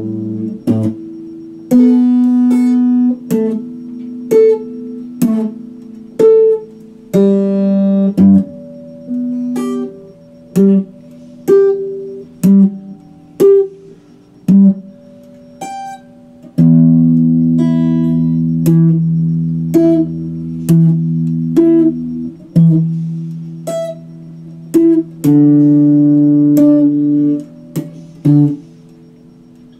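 Ibanez electric guitar played slowly, with single notes and chords picked one at a time, each ringing out and fading. A longer chord is held for several seconds past the middle.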